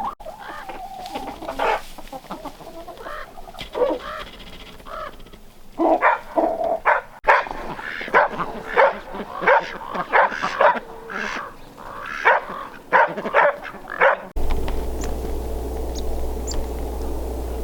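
Chickens clucking and squawking in a rapid run of short calls, thickest in the second half. About fourteen seconds in, this cuts off suddenly to a steady low hum with a few faint, high bird chirps.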